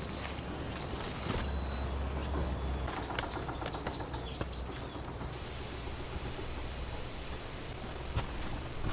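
Insects chirping in a steady, evenly pulsed high trill over a low outdoor rumble, with a run of light clicks about three to five seconds in.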